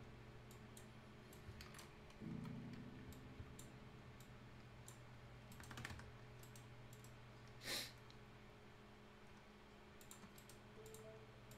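Faint computer mouse clicks and scroll-wheel ticks, scattered irregularly over a low steady hum, with one brief louder rush of noise about two-thirds of the way through.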